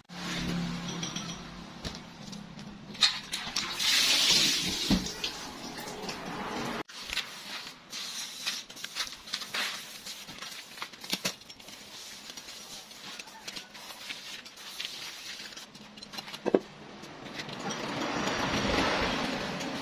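Water sloshing and splashing in a stainless steel basin as a wet cloth bundle is worked by hand. This is followed by scattered clinks and knocks, one sharp metallic clank about three-quarters of the way through, and a rising hiss near the end.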